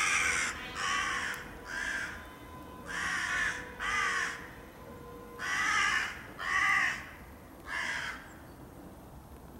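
Crows cawing: eight separate caws in three groups of three, two and three, spread over about eight seconds.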